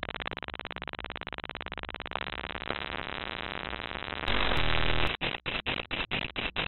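Harsh glitch noise made from a fox painting's scanned, databent image data played as audio: a fast buzzing pulse, then grainy static. About four seconds in it jumps louder, and near the end it breaks into choppy, stuttering bursts.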